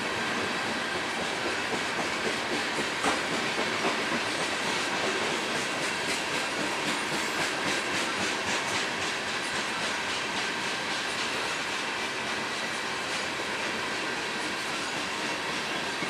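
Oil-train tank cars rolling past: a steady rumble and hiss of steel wheels on rail, with a rhythmic clicking of wheels over the track that is clearest in the first half.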